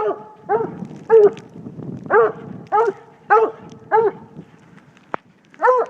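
Coonhound treeing a raccoon: a steady string of chop barks at the tree, about two a second, the sign that the coon is treed. The barks pause briefly near the end, where a single sharp click is heard.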